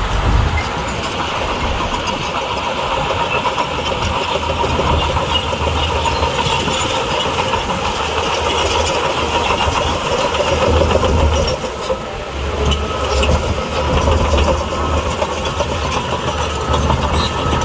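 Diesel engine of heavy earthmoving machinery running steadily, a low rumble with a higher whine above it, swelling and easing a few times.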